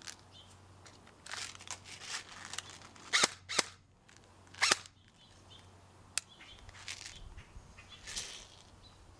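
Sharp plastic-and-metal clicks and clacks from a G&G CM16 R8 airsoft rifle being handled, with its magazine taken out. Three louder snaps come between about three and five seconds in, and smaller clicks come before and after them.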